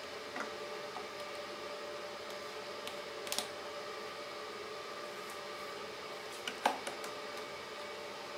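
Wooden parts and a clamp being handled on a workbench, with scattered light knocks and clicks, the loudest about two-thirds of the way in, over a steady hum.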